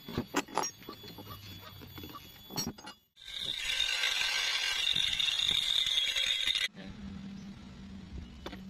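Metal parts of a drill-driven pump assembly clinking as they are handled, several sharp clicks in the first few seconds. A loud, steady high hiss about three seconds in, which stops abruptly, followed by a quiet low hum.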